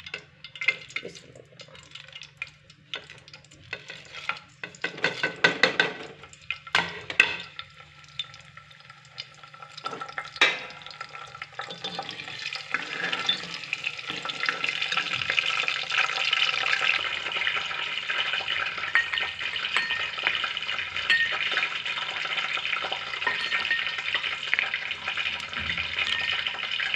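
Whole garam masala spices frying in hot oil in a pressure cooker, with a steel ladle knocking and scraping against the pot as they are stirred. The clinks are scattered in the first half, then the sizzle builds from about twelve seconds in and holds steady.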